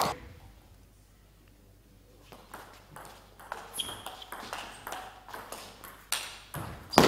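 Celluloid-style table tennis ball clicking back and forth off bats and table in a fast rally, with short high pings as it bounces on the table. A louder burst of noise comes near the end.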